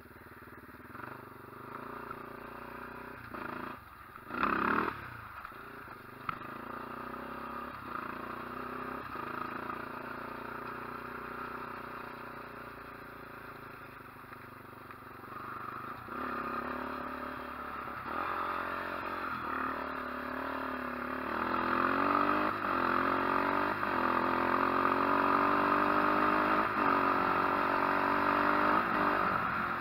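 Quad ATV engine running while riding over grass, with occasional knocks and rattles. A brief loud rush comes about four seconds in. From about twenty seconds in the engine grows louder and its pitch climbs as it speeds up.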